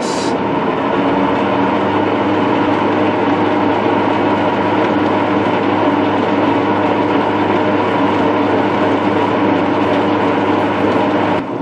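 Metal lathe running in reverse on its variable frequency drive, a four-jaw chuck spinning while a boring bar cuts a potato dry: a steady, even machine hum and whine from the spindle drive.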